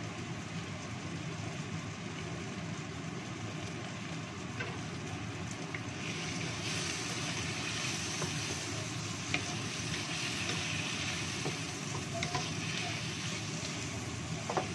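Green tomatoes and shallots sizzling in a wok while a wooden spatula stirs them, with occasional clicks of the spatula against the pan. The sizzle grows louder about six seconds in, once the stirring starts.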